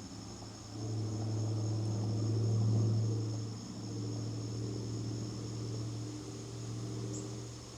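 Insects trilling steadily in two high tones, under a low motor hum that builds about a second in, is loudest around three seconds, and slowly fades near the end.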